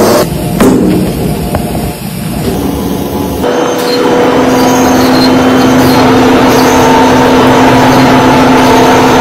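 Heavy rubber-mixing machinery (a two-roll mill) running with a loud, steady mechanical hum. The first few seconds are quieter and more uneven, with a few clicks. From about three and a half seconds in, a louder steady drone holds.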